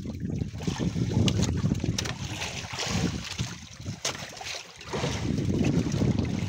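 Wind rumbling on the microphone over sea and boat noise on a small outrigger fishing boat, with a few sharp knocks.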